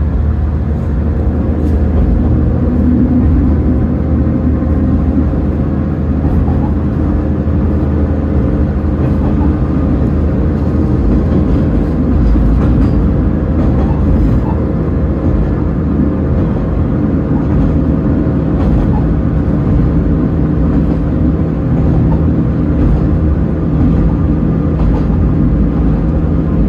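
Diesel railcar running along the line, heard from inside the cab: a steady low engine drone under the rumble of the wheels on the rails, with a few faint clicks.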